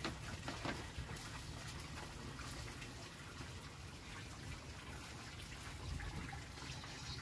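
Faint steady hiss with scattered small crackles from a wood fire burning under the stove.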